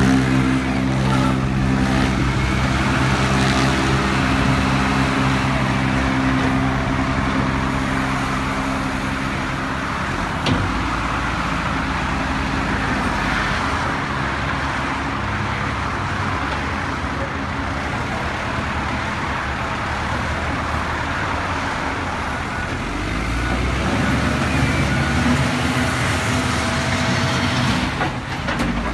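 Caterpillar 924F wheel loader's diesel engine running, with a steady engine note for the first ten seconds or so, then a rougher, noisier sound. A single sharp knock comes about ten seconds in.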